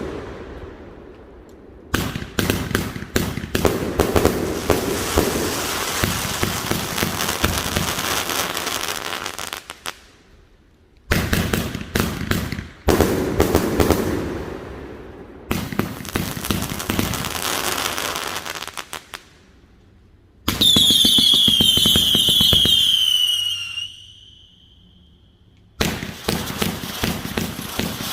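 A 221-shot firework cake firing in volleys of rapid shots and crackle, with short pauses between sequences. About twenty seconds in, a burst of many high whistles falls in pitch for about three seconds.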